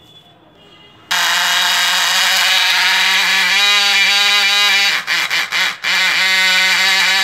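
Small brushed DC motor running at speed with a loud, steady buzzing whine. It starts suddenly about a second in and cuts in and out a few times around five to six seconds before running on.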